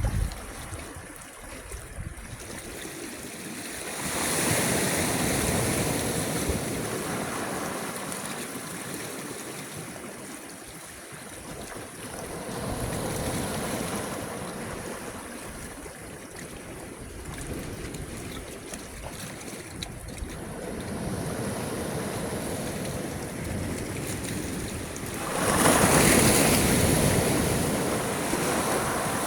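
Sea waves breaking and washing in, rising and falling in slow surges every several seconds, the loudest coming near the end.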